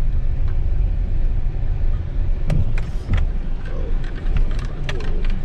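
Car rolling slowly over a rough dirt road, heard from inside the cabin: a steady low rumble, with scattered clicks and knocks from about halfway through.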